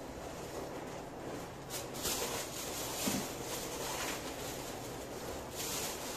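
Steady hiss of a big pot of rice and water boiling on a gas stove, with bursts of crisp rustling about two seconds in and again near the end, the later one from a plastic bag being handled.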